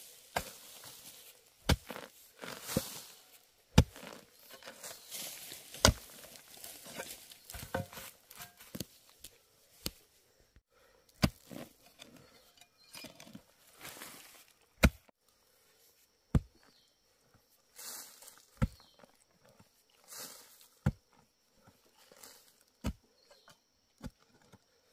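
A hoe chopping into soil, with a sharp thud every one to three seconds and scraping and rustling of loose dirt and dry leaves between the strikes.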